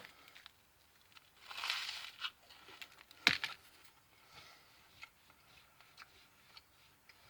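Faint sounds of toast being torn and eaten: a short crunchy rustle about one and a half seconds in, then a sharp click just after three seconds, with small scattered ticks between.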